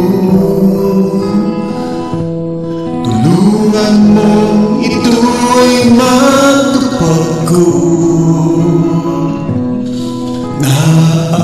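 A man singing a Tagalog hymn over a minus-one karaoke backing track, phrase by phrase with short breaths between lines.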